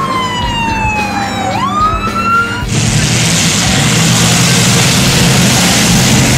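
A siren-like wailing tone falls slowly, then sweeps sharply back up and stops abruptly a little under three seconds in. It gives way to the loud, steady noise of demolition derby cars' engines running as they drive past on the track.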